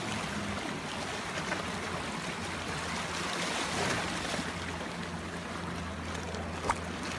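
A steady wash of water and wind noise, with a low steady hum from a boat engine idling through the middle and latter part. A single short click comes near the end.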